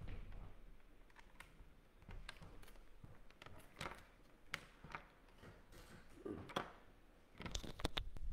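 Handling noise from a person sitting back down close to the recording device: scattered faint clicks, taps and rustles, with a quick cluster of louder knocks near the end.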